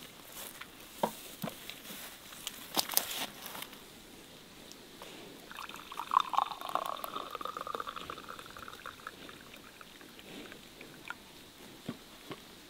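Tea pouring from a ceramic teapot into a glass mug, a trickling stream that starts about halfway through and runs for a few seconds as the glass fills. It is preceded by a few light knocks.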